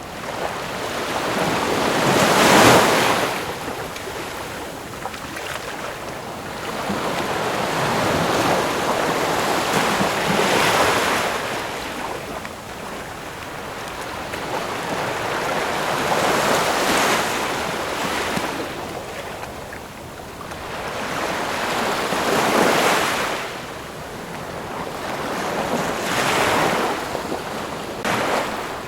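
Ocean waves breaking and washing up on shore. The surf swells and falls back about every four to eight seconds, five times in all.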